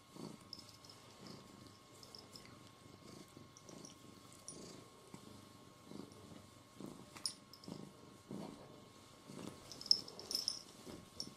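Domestic cat purring faintly, in low pulses about once a second as it breathes. A few short clicks break in, the sharpest about ten seconds in.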